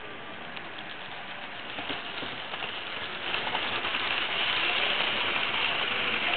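H0-scale model train running past close by: the locomotive's electric motor and the coaches' small metal wheels rolling over the track make a steady whir with light clicking. It grows louder about two seconds in and is loudest as the coaches pass right by.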